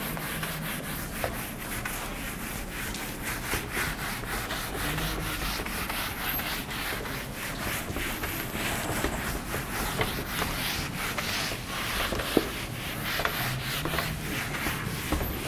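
Felt whiteboard eraser rubbing across a whiteboard in repeated back-and-forth wiping strokes.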